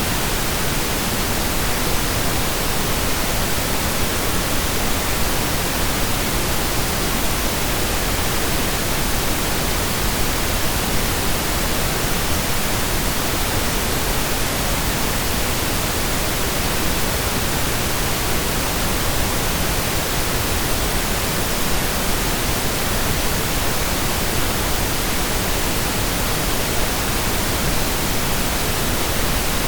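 Synthesized stereo pink noise: a steady, even hiss with equal energy per octave, without change, loops or fades.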